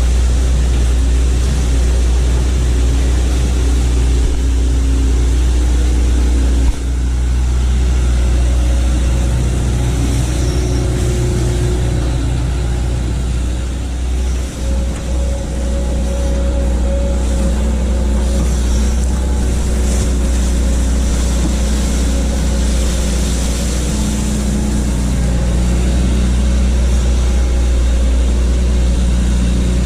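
Hitachi excavator's diesel engine running steadily, its pitch shifting now and then, with a single sharp knock about seven seconds in.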